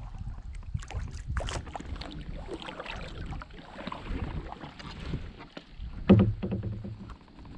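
Kayak paddle strokes: water splashing and dripping off the paddle blades, with small knocks of the paddle against the kayak. About six seconds in comes a loud single thump as the paddle is set down on the kayak's hull.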